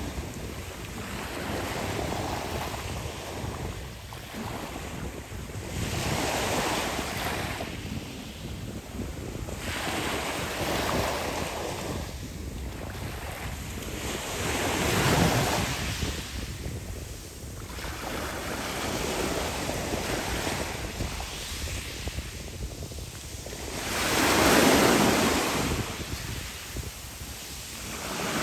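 Small sea waves breaking and washing up and back over a fine pebble beach, the rushing surf swelling and fading every few seconds. The biggest wash comes near the end.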